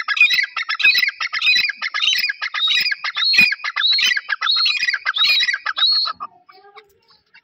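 Grey francolin calling: a loud, rapid series of repeated high phrases, a little under two a second, that stops about six seconds in.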